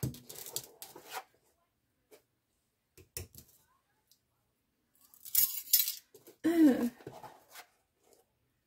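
Metal measuring spoons clinking and jangling together while baking soda is measured out, with a few short scraping and rustling sounds from the spoon and box.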